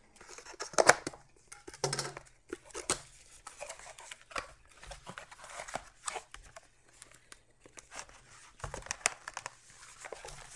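Scissors cutting the seal of a small cardboard box, then the box being opened and its cardboard packaging pulled out: irregular tearing, crinkling and tapping sounds, the loudest about a second in.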